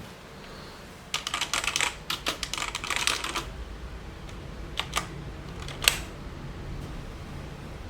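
Booox K87 mechanical keyboard with blue switches being typed on: a quick run of clicky keystrokes for about two seconds, then three single key presses, the last the loudest.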